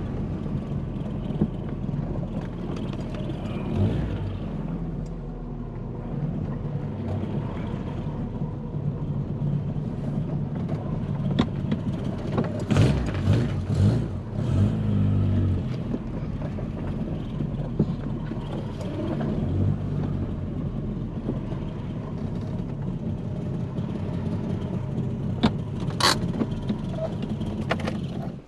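VW Polo Coupe's carburetted four-cylinder engine running at low revs, its revs rising briefly a couple of times around the middle. A sharp click comes near the end, and the engine sound stops abruptly.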